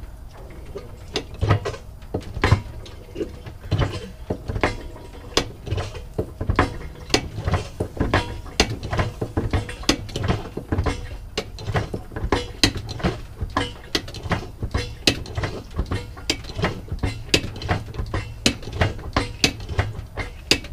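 Hand-operated bucket pump being stroked over and over, clicking and clanking two or three times a second, as it pumps gear oil through a hose into the grapple truck's swing-gear case.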